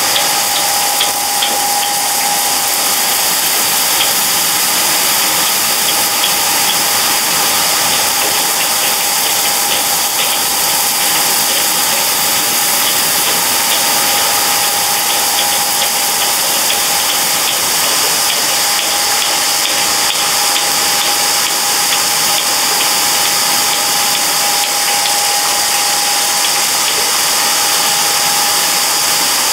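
Rotating konpeito pans running: steady motor and gear-drive noise with a steady whine, and the sugar grains tumbling inside as a dense hiss with fine rattling ticks.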